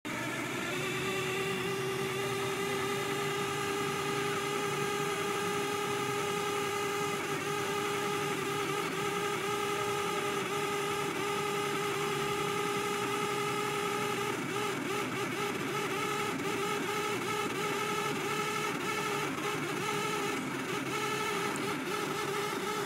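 A 1990 Toyota 4Runner making an unexplained weird noise: a steady whine with several pitches at once over the vehicle's running. About halfway through, the whine's pitch starts to waver and faint ticking joins it.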